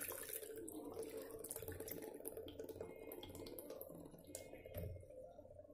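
Chilled full-cream milk poured in a thin stream from a jug into a mixer-grinder jar, a faint, steady splashing trickle.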